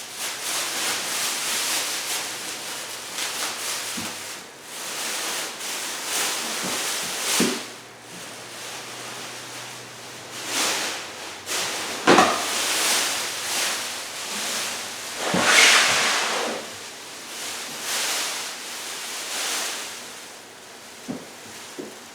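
Packaging being peeled off a new office chair, rustling and crinkling in irregular surges, with a few light knocks from handling.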